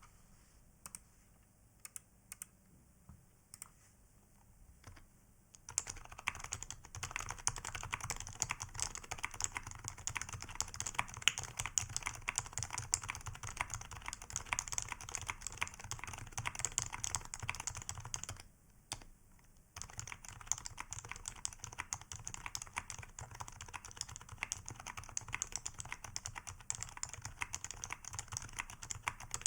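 Matrix Falcon keyboard with Topre electro-capacitive switches (aged HHKB Pro 2 domes, #5 rings, OEM keycaps) being typed on: a few isolated keystrokes, then fast continuous typing from about six seconds in. After a short pause about two-thirds of the way through, the typing resumes at a steadier, normal pace.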